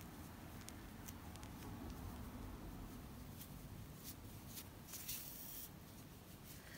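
Faint rustling and scratching of yarn being handled as a metal yarn needle is worked under crochet stitches to weave in a loose end, with scattered light ticks and a slightly louder scrape about five seconds in.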